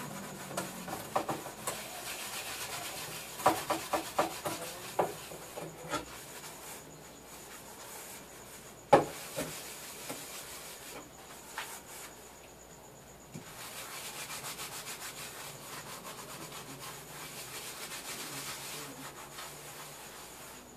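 Sponge scrubbing a frying pan with multipurpose cleaning paste at the kitchen sink: steady rubbing, broken by clicks and knocks of the pan in the first few seconds and one sharp knock about nine seconds in, with a steadier stretch of scrubbing near the end.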